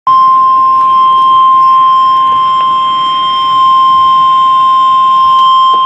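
NOAA Weather Radio warning alarm tone, a single steady 1050 Hz tone sounded for the station's required weekly test. It comes loud through a Uniden BC125AT scanner's speaker.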